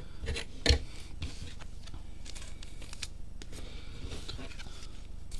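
Panini Hoops trading cards handled and shuffled through by hand: light slides and small taps of card stock, with one sharper tap about two-thirds of a second in.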